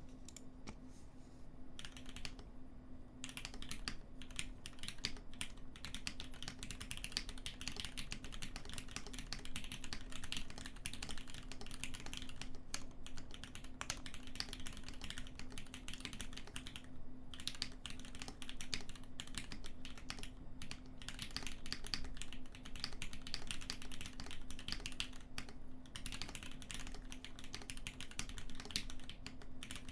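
Typing on a 4GT Sabre mechanical keyboard: top-mounted aluminium plate, lubed retooled Cherry MX Black linear switches and PBT keycaps, with a slightly hollow, deep tone. A few scattered keystrokes give way after about two seconds to fast, continuous typing, broken by a couple of short pauses.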